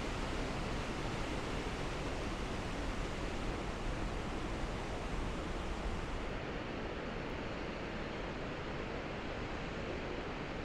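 Steady rushing of a river flowing through a narrow rock gorge below, an even hiss with a low rumble; the highest hiss thins out about six seconds in.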